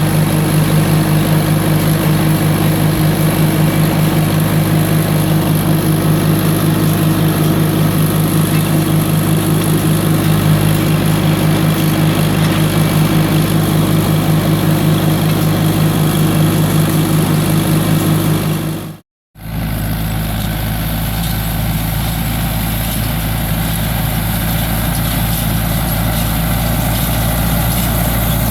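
Quad (ATV) engine running steadily during a trail ride. About two-thirds of the way through it cuts off abruptly, and a steady, deeper engine sound takes over.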